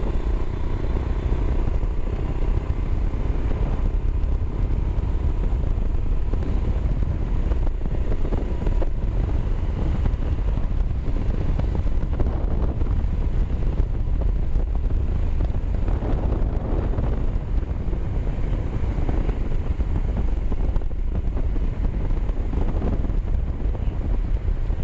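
Motorcycle riding at a steady pace: the engine runs evenly under a constant rush of wind over the microphone, with no changes in speed.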